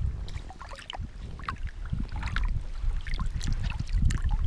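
Small waves lapping and splashing against a wading angler in choppy reservoir water, with wind rumbling on the microphone.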